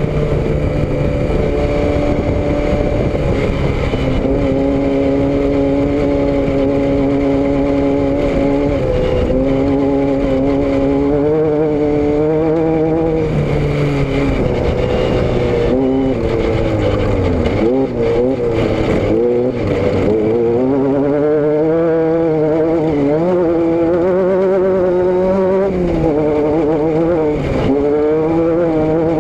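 A motor vehicle's engine and exhaust running under way. The revs rise and fall gradually, with several quick dips in pitch in the middle and near the end.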